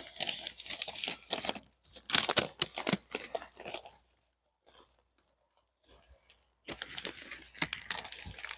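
Adhesive material being peeled apart by hand, a crackling tear with crinkling, in irregular bursts. It stops for about two seconds in the middle, then starts again.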